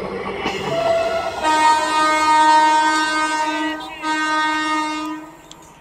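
Indian Railways train horn sounding a long steady multi-tone blast, briefly broken about four seconds in and then carrying on for another second. Before it, the rolling clatter of passing coaches and a short lower horn note.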